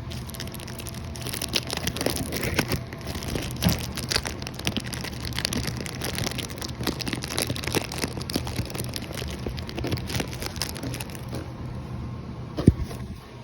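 Plastic wrapping crinkling and rustling in the hands, with many small irregular clicks and knocks of handling, over a steady low hum; one sharper knock near the end.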